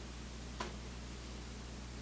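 Quiet room tone with a steady low hum and faint hiss, and a single light click a little over half a second in as a stack of cardboard baseball cards is handled.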